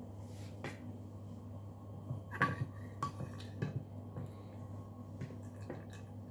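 Scattered light clicks and taps of eating with a spoon from a plastic food container, the busiest cluster about two and a half seconds in, over a steady low hum.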